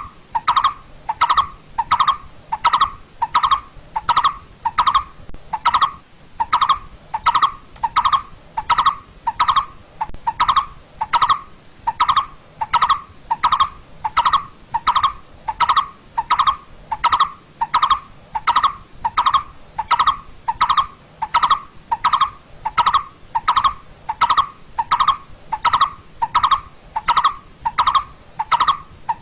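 Coppersmith barbet calling: one short 'tuk' note on a single pitch, repeated evenly at about three notes every two seconds.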